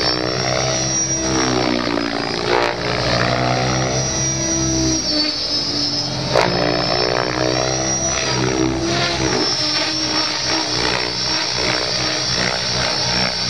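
Electric radio-controlled 3D helicopter (Mikado Logo XXtreme) flying aerobatics: a high motor and gear whine over rotor-blade noise whose pitch rises and falls in long glides as the helicopter swoops and passes.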